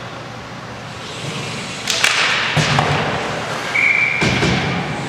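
Ice hockey sticks and puck knocking and clacking in a scramble at the net. About halfway through, a referee's whistle blows once, a short steady note, stopping play, and a few more knocks follow.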